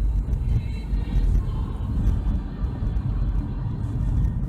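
A car driving along with a steady, loud low rumble of road and engine noise.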